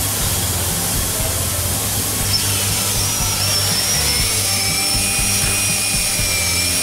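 Power drill with a 17/64 bit running with a steady high whine as it bores the first bolt hole through the plastic fuel tank wall, starting about two seconds in. Background music plays underneath.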